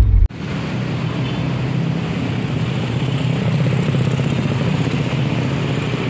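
Steady road-traffic noise with engines running. It starts suddenly just after a burst of music cuts off.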